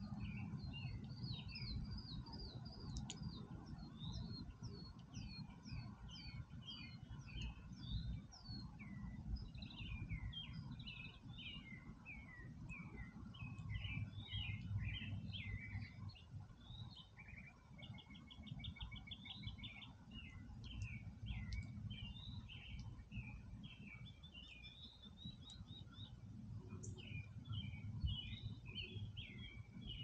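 Several songbirds singing and chirping together in a dense run of short warbled phrases and chirps, with a fast trill about two-thirds of the way through. A low rumble runs underneath.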